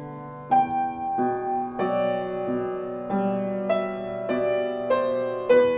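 Upright piano playing a contemporary solo piece: notes and chords struck at an even pace, about one every 0.6 seconds, each left to ring into the next.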